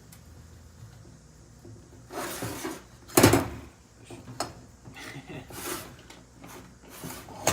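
Handling noises of a metal workpiece being shifted: rustling and small clicks, with one loud knock about three seconds in.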